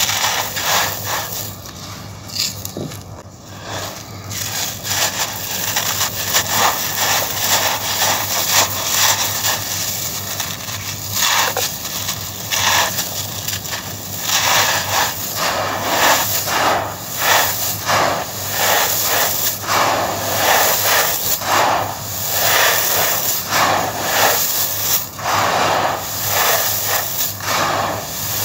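Coarse, stony sand crushed in the hands and poured back through the fingers: a dense, irregular run of gritty crunches and trickling grains. There is a quieter dip about two to four seconds in.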